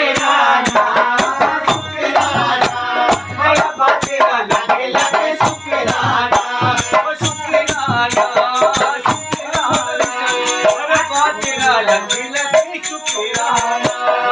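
Live folk music: a melody on a keyboard with singing, over a fast, steady beat of sharp clicks and low thuds.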